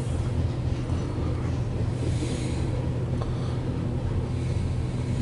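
Loaded coal train's hopper cars rolling past a grade crossing, heard from inside a car's cabin: a steady low rumble of wheels on rail.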